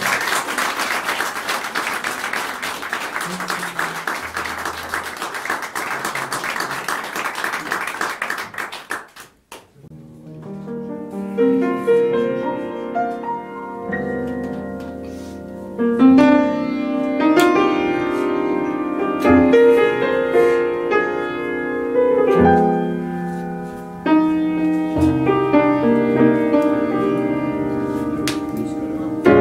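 Audience applauding for about nine seconds, then after a brief hush a grand piano begins playing alone.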